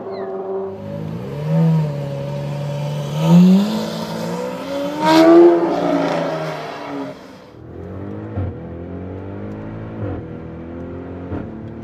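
Supercar engine revving: two loud rev-ups in the first half, falling back to a lower steady idle with short throttle blips in the second half.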